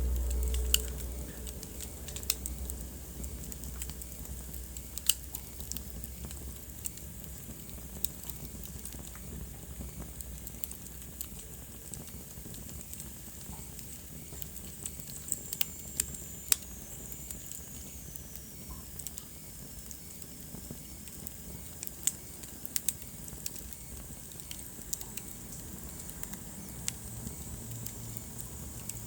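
Wood fire burning in a fireplace, crackling with scattered sharp pops over a low steady hiss. A low rumble comes in the first couple of seconds, and a faint high whistle glides downward about halfway through.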